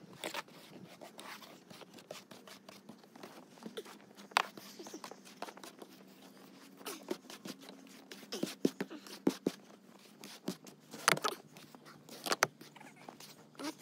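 Irregular clicks, knocks and scrapes over a faint steady hum, with a few sharper knocks about four seconds in and again near the end.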